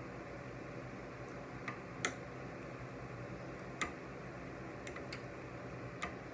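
Metal fork clicking against a plate several times during eating, about six short sharp clicks scattered over a steady background hiss, the loudest about two seconds in.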